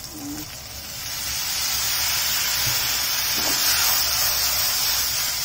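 Soy sauce poured into a hot nonstick frying pan sizzles. The sizzle builds about a second in and holds steady as a loud hiss.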